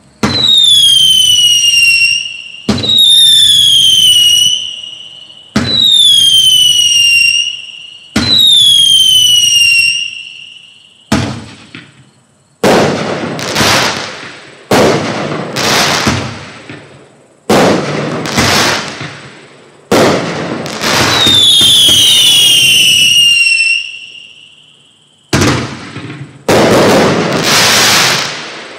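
Black Cat Night Howler fireworks cake firing its shots in quick succession, about fifteen in all. The first four shots each give a loud whistle that falls in pitch over about two seconds; the following shots are loud bursts that fade over a second or two, with two overlapping falling whistles a little past the middle and three more bursts near the end.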